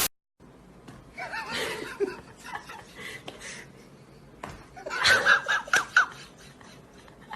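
A person laughing in short bursts, with a run of quick ha-ha pulses about five seconds in.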